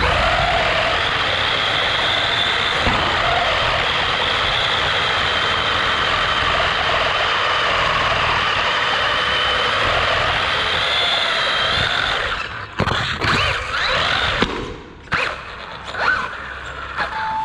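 Small electric RC buggy driven hard on a tiled floor, heard from a camera on the car itself: a steady high motor and gear whine with tyre noise for about twelve seconds. Near the end it turns to short stop-start bursts, the whine rising and falling, with a few knocks.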